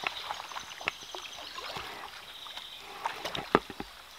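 Kayak paddle strokes in river water: irregular small splashes and drips off the blade, the loudest splash about three and a half seconds in.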